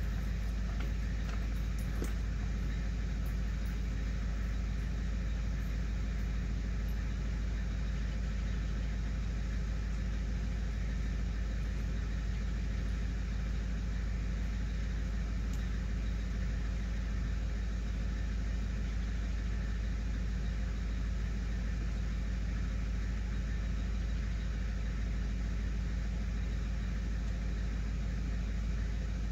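Diesel truck engine idling steadily, a low even sound with no change in speed.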